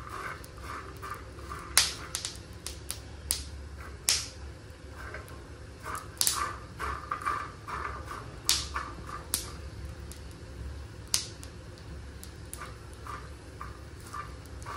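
Peanuts dry-roasting on a hot tava, crackling with scattered sharp pops, while they are stirred around the pan.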